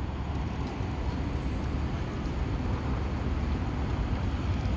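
Steady road-traffic noise by a city avenue, with a heavy low rumble.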